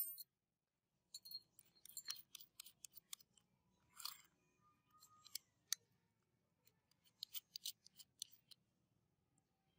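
Faint, scattered metallic clicks and ticks of the electric drill's metal parts and keyed chuck being handled and fitted together by gloved hands.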